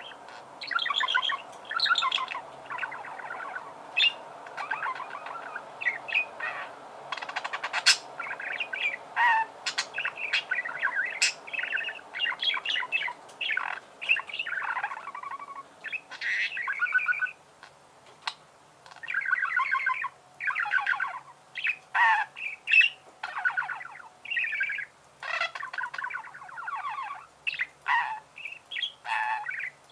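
Budgerigars warbling and chattering: a busy stream of quick chirps, squeaky notes and sharp clicks, with a short lull a little past the middle.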